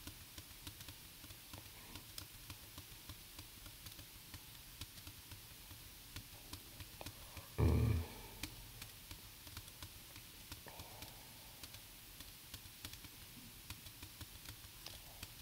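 Light, irregular clicking of computer keys, pressed over and over to step a debugger through code. About eight seconds in there is one brief, louder low sound.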